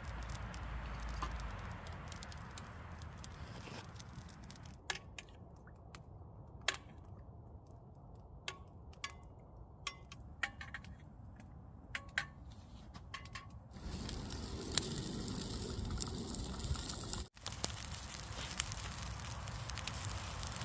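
Wood fire crackling, with scattered sharp pops and snaps.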